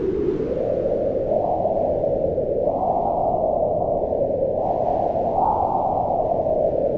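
Wind blowing in a low, steady rush, its pitch swelling and easing in slow gusts that peak a few seconds in and again past the middle before settling near the end.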